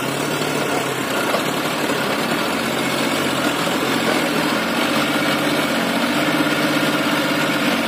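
John Deere 5045D tractor's three-cylinder diesel engine running steadily under heavy load, hauling a fully loaded earth trolley through mud, a little louder in the second half.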